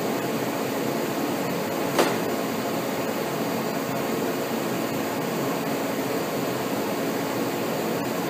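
Steady rushing air noise from a running fan or ventilation unit in a shop, with a single sharp click about two seconds in.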